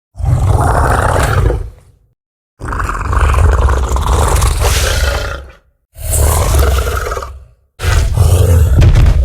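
Allosaurus roar sound effects: four separate deep, loud roars, each one and a half to three seconds long, cut apart by complete silence. The second is the longest.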